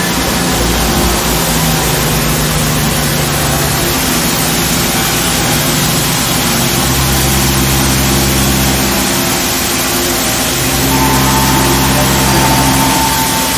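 OKK HM-100S horizontal machining center cutting a large casting: the CAT 50 spindle and cutter running through the metal with a loud, steady noise. Low humming tones under the noise change pitch in steps every few seconds, and a higher whine joins near the end.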